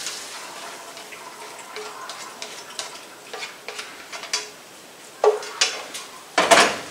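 A fork scraping browned ground beef out of a frying pan into a strainer to drain off the fat, with scattered clinks. Two louder clatters of the pan come near the end.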